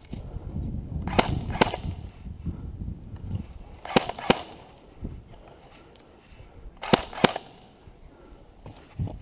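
Airsoft replica rifle firing single shots in pairs, three quick pairs a few seconds apart, each shot a sharp crack, over a low rumble.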